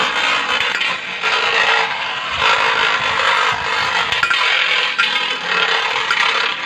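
Two Beyblade spinning tops, a metal Rock Leon and a handmade one, spinning on a stainless steel bowl. They make a steady metallic whirring scrape with a few light clicks.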